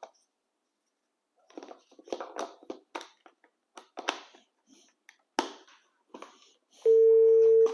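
Plastic clicks and knocks as a GSM fixed wireless desk phone is handled and its SIM card fitted. Near the end a loud, steady dial tone starts from the phone.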